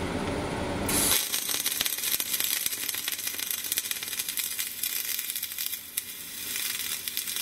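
Flux-core arc welding: the arc strikes about a second in and then crackles steadily as the wire feeds, with a low hum before it starts.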